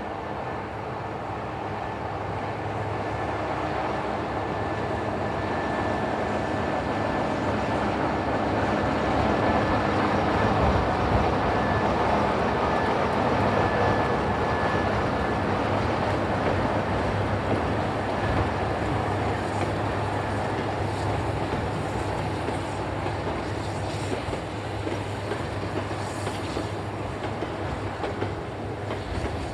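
English Electric Class 37 and Class 45 diesel locomotives running double-headed past at the head of a goods train. Their engine drone swells to a peak about a third of the way through, then slowly fades as the train draws away. Wheels click over the rail joints as the wagons roll by.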